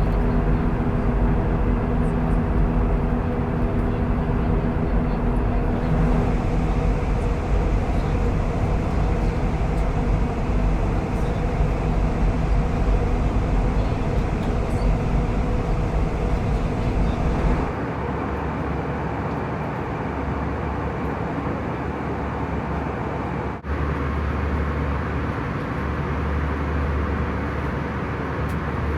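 Airbus A320 cabin noise in cruise flight: a steady roar of engines and airflow with a low hum. Its tone shifts abruptly about two-thirds of the way through, with a brief dip a few seconds later.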